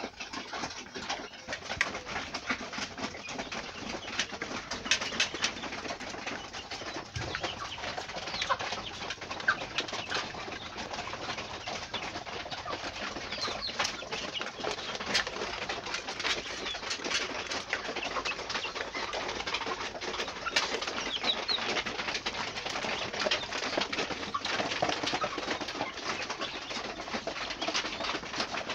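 A flock of young chickens peeping and chirping continuously, with many short clicks and taps among the calls and some wing flapping.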